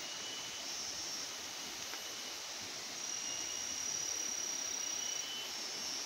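Forest ambience: a steady background hiss with thin, high insect calls coming and going, one held for about two seconds from around three seconds in.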